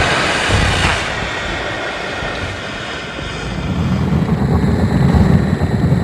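Kaiju roar sound effect from the Gamera films: a long, rough, rumbling roar with a faint high screech over it. It eases in the middle and swells again about four seconds in.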